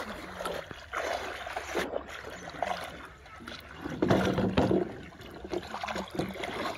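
River water sloshing and splashing around legs wading through the shallows, in uneven surges, loudest a little after four seconds in.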